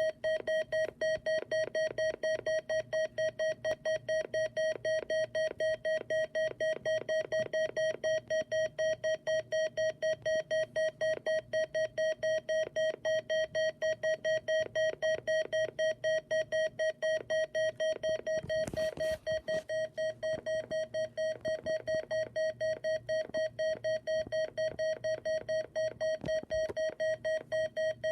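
Electronic alert beeper sounding one fixed-pitch, buzzy tone in rapid pulses, about three and a half beeps a second, without a break. A short burst of noise cuts in about 19 seconds in.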